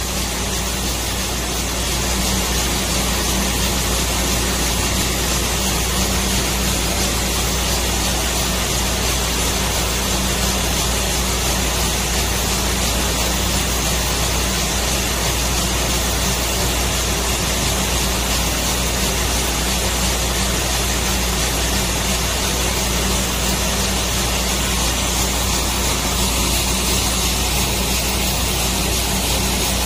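Compressed air blasting steadily from nozzles onto a diesel particulate filter, blowing ash and soot out of it, as a loud continuous hiss over a low machine hum.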